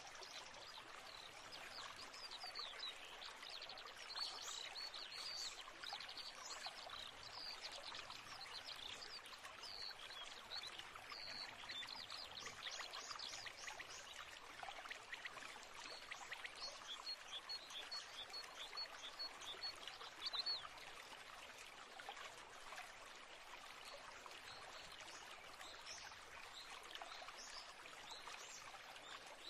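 Steady rush of running water with birds chirping over it, including a quick run of repeated short notes past the middle.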